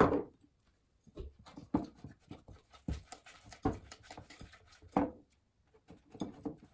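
A sharp knock at the start, then a wire whisk stirring waffle-cone batter in a glass bowl: irregular clicks and scrapes of the wires against the glass.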